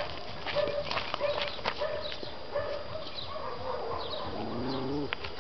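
A dog whining in short, repeated high notes, with small chirps from birds higher up.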